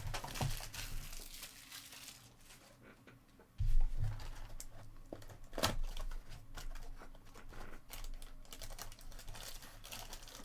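Crinkling and tearing as trading card pack wrappers are opened and handled, with many small clicks. There is a dull thump about a third of the way in and a sharp click a little past halfway.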